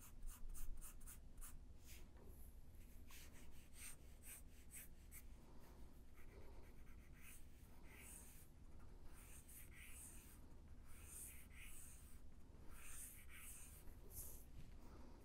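Pencil shading on paper, faint: quick back-and-forth strokes, about four or five a second, for the first couple of seconds, then slower, scattered scratchy strokes.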